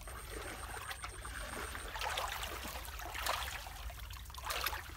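Hands sloshing and groping through shallow muddy ditch water, with small splashes about two seconds in, again a little after three seconds, and near the end.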